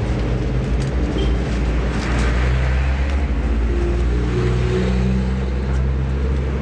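Steady low rumble of a running engine or motor.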